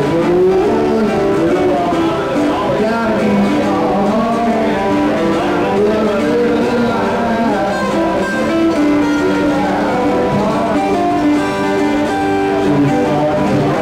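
A man singing into a microphone while playing a cutaway acoustic guitar, a live solo acoustic performance.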